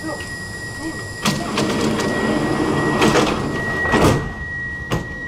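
Metro train's door-closing warning: a steady high tone sounds while the sliding doors shut with several knocks and rattles, the loudest about four seconds in.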